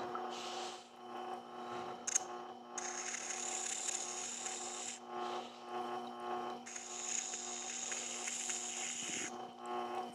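Wet grinding wheel (water-cooled whetstone grinder) running with a steady motor hum. Twice, for a couple of seconds each, a hissing scrape comes in as a small extruder drive gear is pressed against the stone to grind down its protruding hub.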